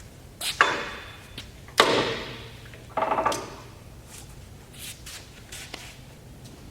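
Sharp metallic clunks and clicks from an engine lathe, three loud ones in the first three and a half seconds and a few fainter ones after. Each has a short metallic ring.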